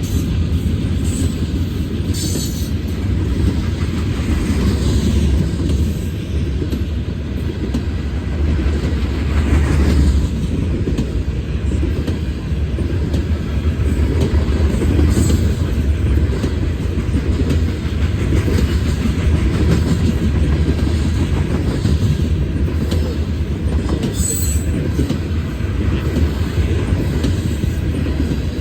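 Long, heavy freight train's cars rolling past in a steady loud rumble with wheel clatter, and a few brief high squeaks from the wheels.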